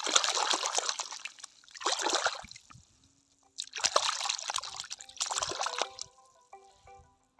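Water splashing and trickling over plastic toy animals in four short bursts. A light tune of short notes starts near the end.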